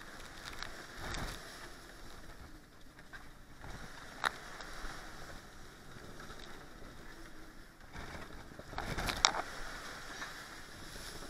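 Sea water rushing and breaking along a sailboat's hull as it drives through heavy seas, in surges. A sharp slap about four seconds in and a louder one about nine seconds in, as a wave strikes the hull.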